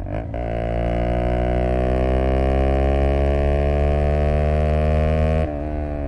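Single-cylinder engine of a Zontes U125 scooter running under throttle. Its pitch climbs slowly for about five seconds, then drops suddenly and quiets near the end.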